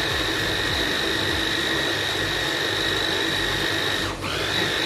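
Electric blender motor running steadily with a high whine, grinding boiled haleem lentils and wheat into a thick paste. About four seconds in, the motor briefly slows and then comes back up to speed.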